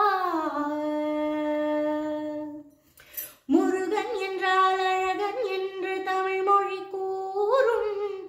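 A woman singing a Tamil devotional song to Murugan, solo: a long note slides down and is held, she takes a breath about three seconds in, then a new phrase of quick ornamented turns around one pitch.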